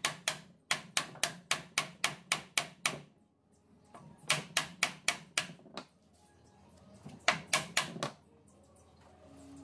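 A hammer striking wood in quick, even blows, about four a second, in several runs separated by short pauses.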